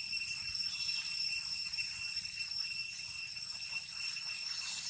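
Steady, high-pitched insect drone made of several held tones that never break.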